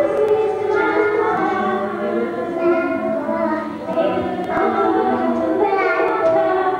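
Choral music: several voices singing long, overlapping notes.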